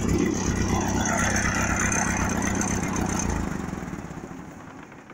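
Ford tractor's engine idling with its exhaust removed, a steady low rumble that dies away after about three and a half seconds as it is shut off.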